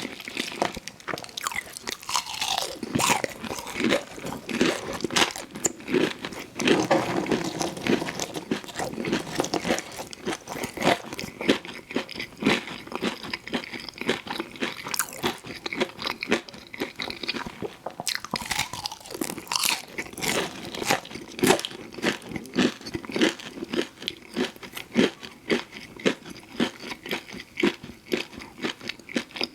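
Close-miked crunchy biting and chewing of fried food, a dense run of irregular crackles and crunches.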